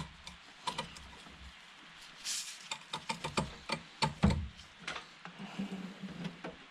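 Irregular metallic clicks and knocks of a spanner working against a flywheel puller bolt as it is strained and repositioned, the bolt not yet turning. A heavier knock with a low thud comes about four seconds in.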